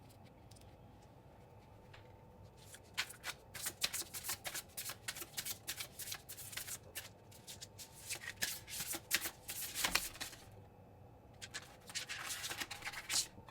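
Under the Oak tarot deck being shuffled by hand, with rapid flicking and riffling of cards in two spells: a long one starting a few seconds in, and a shorter one near the end after a brief pause.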